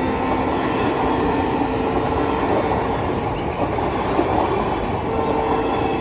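Passenger train coaches rolling past at speed, a steady rumble of wheels running on the rails. A steady tone sits under it, fading out partway through and coming back near the end.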